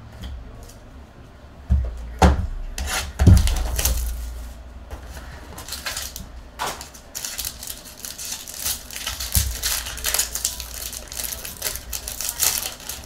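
A trading-card box being handled with a few knocks, then its plastic wrapper crinkling and tearing as it is opened.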